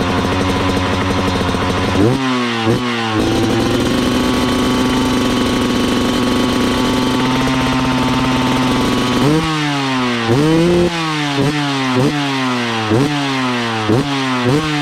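Husqvarna TE300 single-cylinder two-stroke enduro engine through a Fresco exhaust pipe, running steadily, then two quick throttle blips about two seconds in. It holds a steady raised speed for several seconds, then from about nine seconds in gets a run of sharp throttle blips, each revving up and falling back, roughly one a second or faster.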